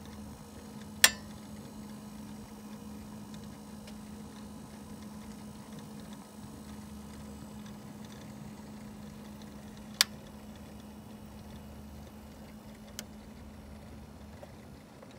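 Mercedes 350GD's 3.5-litre turbodiesel inline-six idling steadily with an even ticking clatter and a constant low hum. Three sharp clicks cut through it: a loud one about a second in, another about ten seconds in, and a fainter one near the end.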